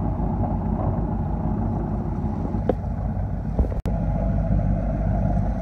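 Sailboat's engine running steadily while motoring at low wind, with water rushing past the hull. A couple of light knocks, and the sound cuts out for an instant about two-thirds of the way through.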